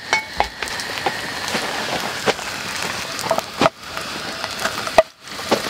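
Chive pancake batter sizzling in oil in a nonstick frying pan, with scattered light scrapes and taps of a wooden spatula. The sizzle drops out briefly twice near the end.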